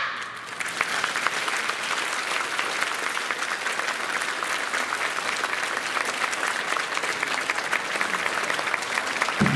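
Audience applauding steadily after a brass band piece ends, with the band's next music starting near the end.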